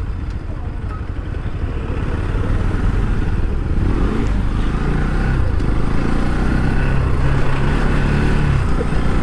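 Motorcycle engine running while under way, with a heavy rumble of road and wind noise; it grows a little louder about two seconds in.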